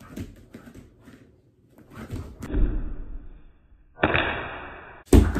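A person doing a standing backflip and landing on a carpeted floor: shuffling and a rush of movement as he jumps, then a loud thud of the feet hitting the floor near the end.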